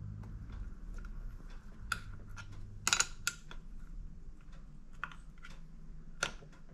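Scattered light clicks and taps of small metal parts and hand tools as a nut is fitted and adjusted on a two-stroke engine's clutch release adjuster. Two sharper clicks come about three seconds in, over a faint low hum.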